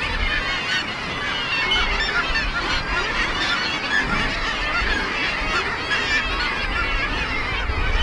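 A seabird colony: many birds calling at once in a dense, overlapping chorus, with a low rumble underneath.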